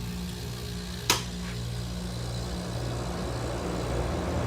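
Window air conditioner starting up: a steady low motor hum, a sharp click about a second in, then the fan's airflow building louder.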